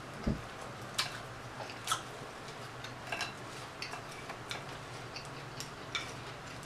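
Metal fork clicking and scraping against a glass salad bowl as greens are tossed and picked through: a loose string of light ticks, with one dull thump near the start.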